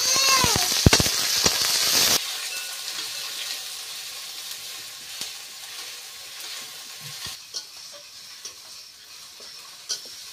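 Sliced onions and ginger-garlic paste sizzling in hot oil in a metal wok (kadai), with a metal spatula scraping and knocking against the pan for the first two seconds. The sizzle then drops to a quieter steady level with a few light clicks.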